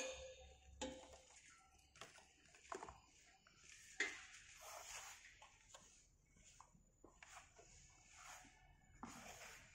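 Faint, irregular knocks of a hand rammer packing green moulding sand into a moulding box, a second or more apart, the loudest at the very start and about four seconds in.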